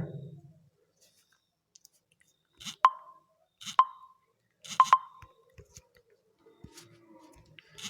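Redmi smartphone's default touch-feedback clicks as the screen is tapped: short sharp clicks with a brief pitched ring, single ones about a second apart and then a quick pair near the middle.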